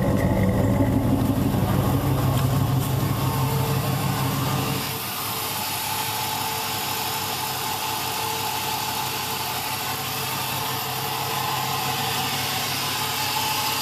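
1999 Dodge Ram's 5.9-litre V8 idling steadily, warmed up after a cold start. At first it is a deep, low exhaust note from the Flowmaster exhaust tip. About five seconds in, the deep note drops away and the lighter, hissier sound of the running engine from the open engine bay takes over.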